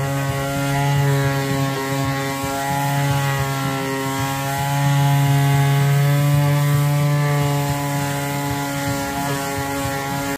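Random orbital sander running against the wood of a weathered wooden table edge, sanding it before oil stain. Its steady motor hum dips slightly in pitch and grows a little louder about halfway through as the pressure on the pad changes.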